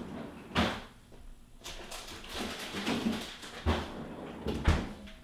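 Rummaging in a kitchen freezer for a bag of frozen chocolate chips: a few sharp knocks and thumps of frozen packages and the freezer compartment, with rustling and shuffling between them.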